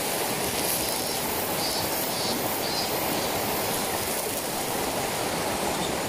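Mountain stream rushing over a rocky bed, a steady wash of water.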